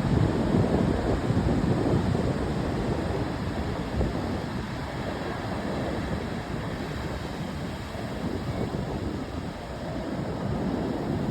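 Ocean surf washing steadily onto the shore, swelling and easing as waves come in, with wind buffeting the microphone.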